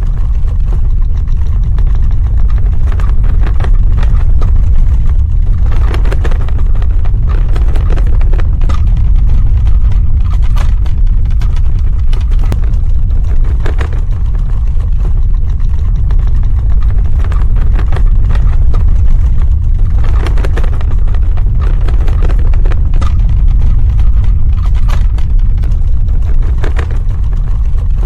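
Earthquake sound effect: a loud, continuous deep rumble with scattered crackles and rattles over it.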